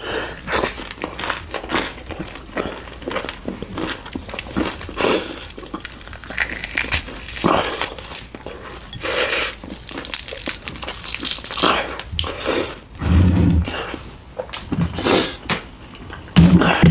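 Close-miked eating sounds: chewing and mouth noises, a dense run of small clicks and crunches with a few heavier low thuds.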